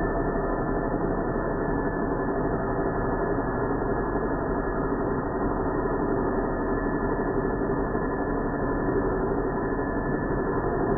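Hand-held angle grinder's wheel grinding metal, throwing sparks, heard slowed down by slow-motion playback as a steady low drone with a few faint humming tones.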